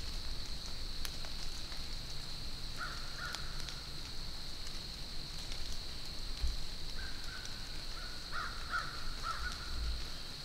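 Crows cawing faintly: a couple of short calls about three seconds in, then a run of calls in the second half.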